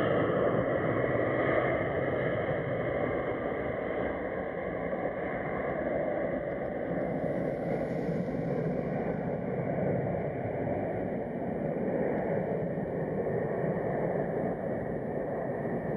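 Jet engines of a twin-engine jet freighter at takeoff power during its takeoff roll: a steady low rumble, with a fainter high whine that fades over the first few seconds.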